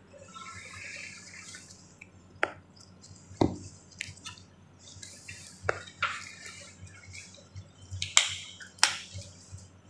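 Handling noises from gloved hands picking wet cotton balls out of a small dish beside a steel kidney basin: about six sharp clicks and light knocks, the loudest two near the end, over faint rustling.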